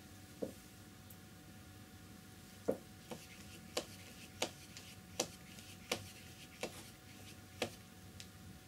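Flat paintbrush working tempera paint back and forth on a palette to blend it, heard as a run of faint light taps, about one every two-thirds of a second after a lone tap near the start.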